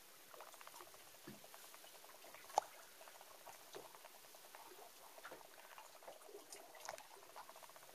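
Faint, dense pattering of small irregular ticks, with one sharp click about two and a half seconds in.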